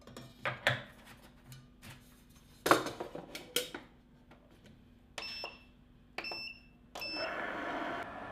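Metal bowl and paddle of a Cuisinart compressor ice cream maker clattering and knocking as they are fitted into the machine. Then its control panel beeps at two button presses, and about seven seconds in a third beep comes as the machine starts running steadily.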